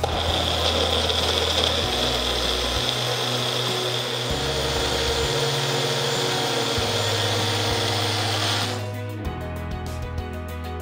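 Magic Bullet personal blender running, its motor blending fruit and juice into a smoothie with a steady high whine; it stops near the end.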